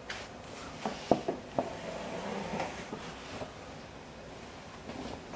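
A few light knocks and handling clatter about a second in, then a short rubbing noise, as the sanding block and sanded panel are handled.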